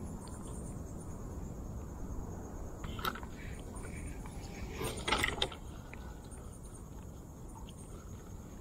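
A steady low rumble, with a sharp click about three seconds in and a short cluster of clicks and knocks around five seconds in, the loudest part. The clicks are handling noise from a fishing rod and reel as a lure is cast and worked.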